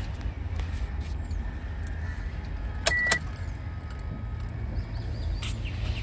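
Maruti Suzuki A-Star's engine idling as a steady low hum, with scattered clicks and one short high electronic beep about three seconds in.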